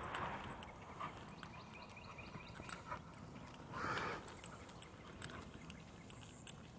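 An XL American bully dog breathing hard, with two short, stronger breaths at the start and about four seconds in.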